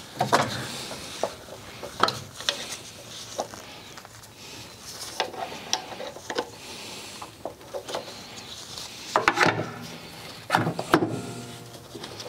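Pliers working rubber hoses and clamps off an old carburetor: irregular small metal clicks, rubbing and scraping, with a few sharper knocks near the end.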